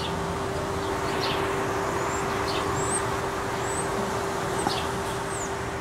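A steady mechanical hum with a constant low tone under an even wash of traffic-type noise. Small birds chirp briefly several times over it.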